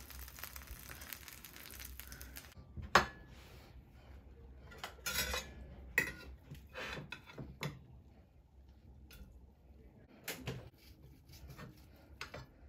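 Oven-roasted chicken sizzling in a hot glass baking dish, then a sharp knock about three seconds in. After that, a spatula scrapes and clinks against the glass dish and a plate as the pieces are lifted out, with a knife against the plate near the end.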